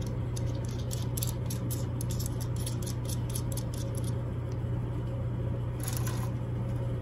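Light metallic clicks and ticks as a nut is threaded by hand onto the push-in arm collar of a Floyd Rose tremolo bridge: a quick run of small ticks, then a short cluster about six seconds in. A steady low hum runs underneath.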